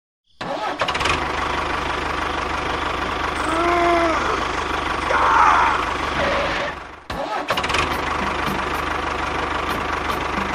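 A motor starting up and running steadily, with a low hum under it. It breaks off briefly about seven seconds in, then runs again.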